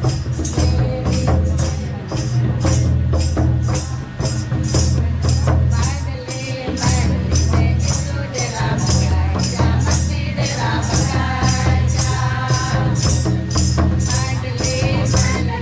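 A group of women singing a hymn together, accompanied by a mandar, the double-headed clay barrel drum of Jharkhand, with a steady sharp beat of about two or three hits a second over the singing.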